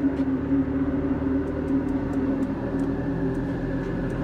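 A steady mechanical hum with several even tones, and a few faint ticks over it.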